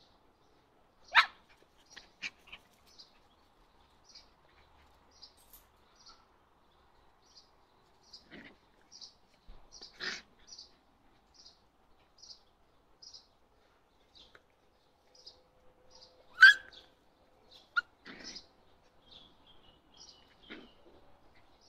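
Puppies yipping and barking as they play-fight, with short sharp calls scattered through, the loudest about a second in and again about sixteen seconds in. A small bird chirps repeatedly in the background.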